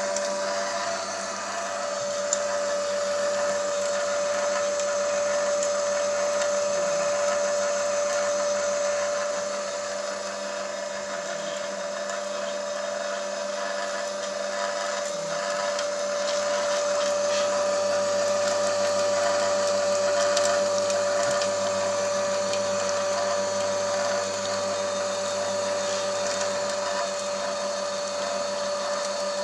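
YMC electric screw oil press running steadily as it presses almonds, its motor giving a constant whine over the grinding of the screw.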